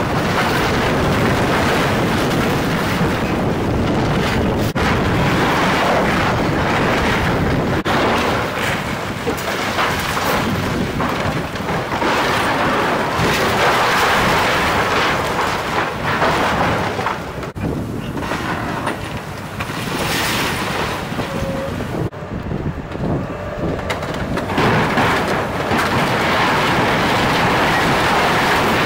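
Komatsu hydraulic excavator demolishing a wood-frame building: its engine running under a continuous loud rumble of splintering timber and crashing debris, which eases briefly twice in the second half before swelling again.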